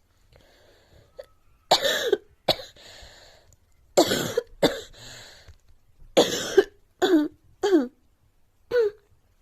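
A girl coughing: about eight short, voiced coughs in quick runs of two or three, each cough's pitch falling at its end.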